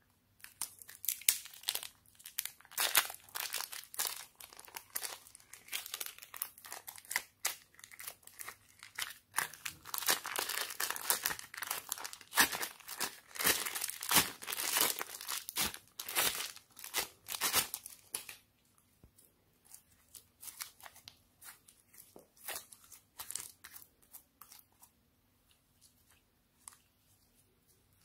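Plastic zip-lock bag crinkling and crackling as it is handled and peeled away from a bagful of soft slime, mixed with sticky crackles from the slime. About two-thirds of the way in this gives way to quieter, scattered clicks of the bare slime being squeezed and stretched by hand.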